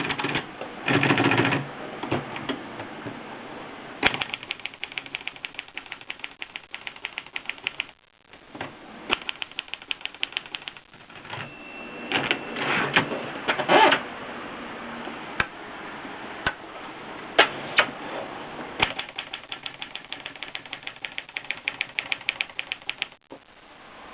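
Olivetti Lettera 22 portable manual typewriter being typed on: quick runs of key strikes broken by short pauses. About eleven seconds in a single short ring sounds, followed by heavier clattering.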